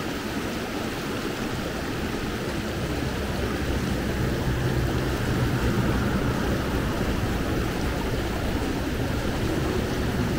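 Fast-flowing mountain river rushing over rocks: a steady, even rush of water that swells slightly about midway.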